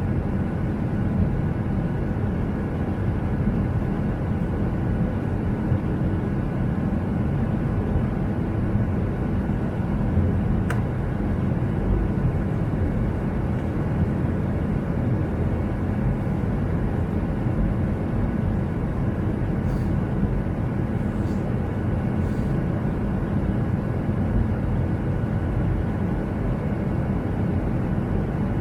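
Steady drone of jet engines and rushing air heard inside an airliner cabin in flight, deep and even throughout, with one faint click about eleven seconds in.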